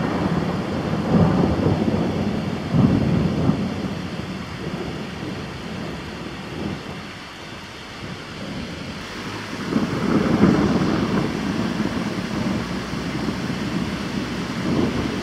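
Rolling thunder rumbling in long swells over the hiss of steady rain. The rumble is strongest in the first few seconds, dies down about halfway through and swells again about ten seconds in.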